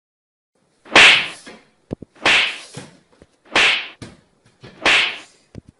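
Four sharp lashing strikes of a beating, evenly spaced a little over a second apart, each trailing off in a short hiss.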